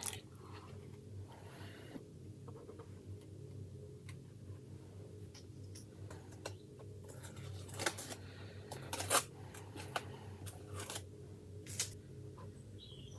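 Masking tape being lifted and peeled off a plastic scale model with metal tweezers: faint scratches, rustles and clicks, the sharpest ones in the second half, over a steady low hum.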